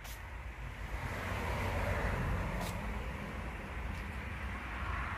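Steady outdoor background noise: a low rumble with a hiss over it, and two faint ticks, one at the start and one about two and a half seconds in.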